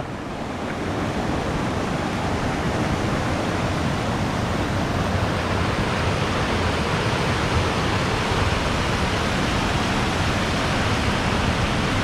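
Waterfall: a steady rush of falling water that swells over the first second or so and then holds even.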